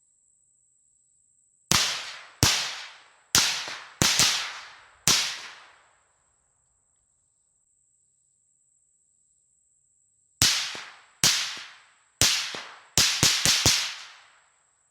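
Suppressed AR-15 in 5.56 firing thirteen shots in two strings: six spaced shots, then after a pause of about four seconds seven more, the last four in quick succession. Each crack trails off in an echo lasting about a second.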